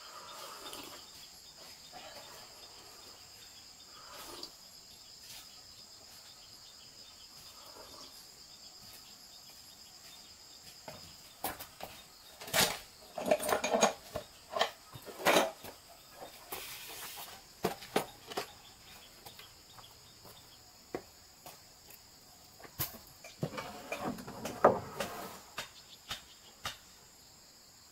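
A steady, high-pitched insect chorus of crickets. About halfway through, hand tools rattle and clatter in a wooden crate. Near the end, wooden planks knock against each other as they are loaded onto a cart.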